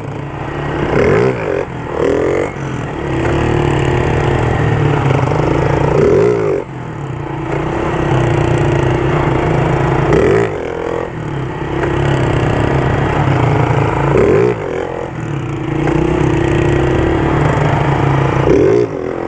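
Two small Honda street motorcycles running together at riding speed, engine note rising and falling several times as the throttle opens and closes.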